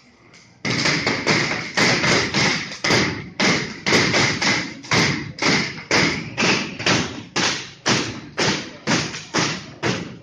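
A steady beat of heavy thuds, about two a second and evenly spaced, starting about half a second in, each followed by a short echo.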